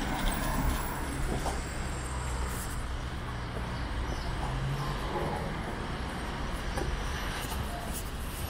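Street ambience: a steady low traffic rumble with scattered light clicks and knocks.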